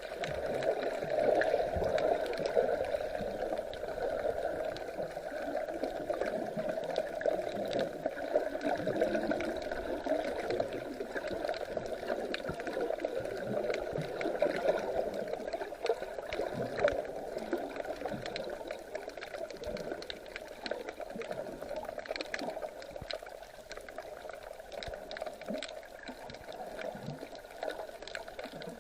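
Sea water gurgling and sloshing with many small clicks, going a little quieter near the end.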